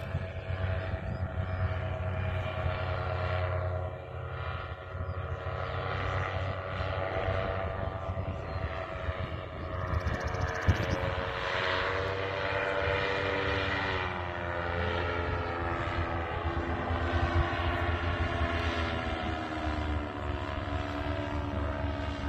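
Paramotor's engine and propeller droning in flight overhead, the pitch rising a little about halfway through and then falling, and dropping again near the end.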